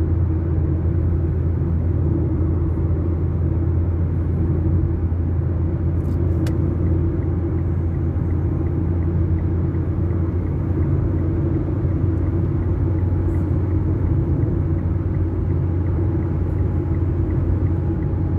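Steady low rumble of a motor vehicle running, unchanging throughout.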